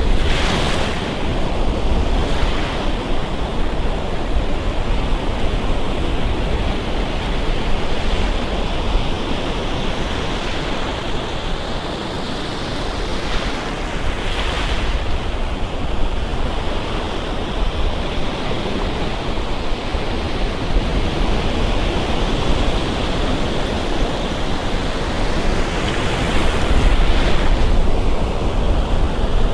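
Gulf of Mexico surf breaking and washing up on the beach: a steady rush of waves, with a few louder breaks about a second in, about halfway through and near the end.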